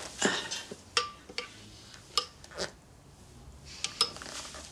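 A metal spoon clinking and tapping against a ceramic bowl: several short, light clinks a second or so apart, a couple of them ringing briefly.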